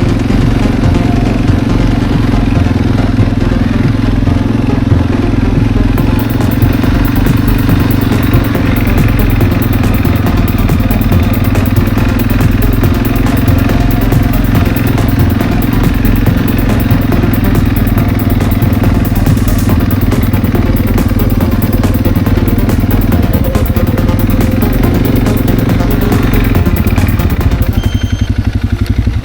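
A loud engine running steadily with a rapid pulsing beat, slowing and dropping away right at the end.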